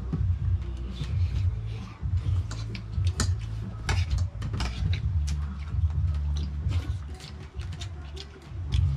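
Spoons and dishes clicking and tapping irregularly at a meal, over a steady low bass rumble.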